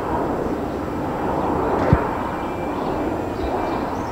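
Boeing P-8A Poseidon's twin CFM56 turbofan engines giving a steady jet noise as the aircraft passes low with its landing gear down. A brief low thump comes about two seconds in.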